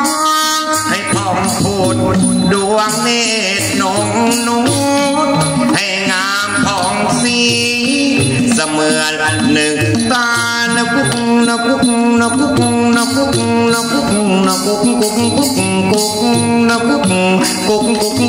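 Thai traditional music: a wavering, ornamented melody line over steady rattling percussion.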